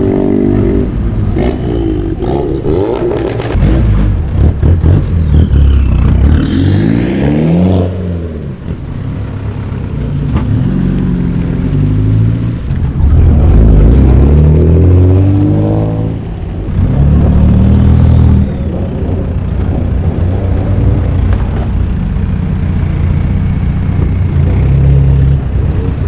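Car engines revving and accelerating away in turn, each engine note climbing and dropping several times, with a quick run of sharp clicks about three seconds in. The loudest stretch comes about halfway through.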